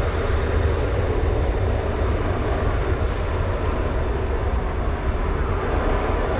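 Boeing 767-300 freighter's twin jet engines running at high power on the takeoff roll, a loud steady low rumble as the aircraft moves away down the runway.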